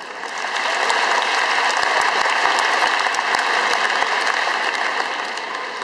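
Large arena crowd applauding. The clapping swells within the first second, holds steady, then slowly dies down near the end.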